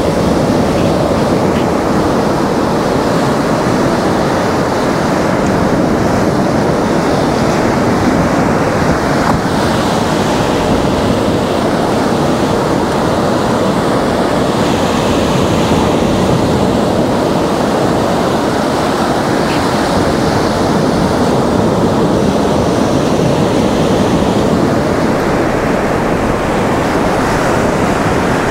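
Black Sea surf: small waves breaking and washing up over a flat sandy beach in a continuous rush of water and foam, swelling a little as each wave runs in.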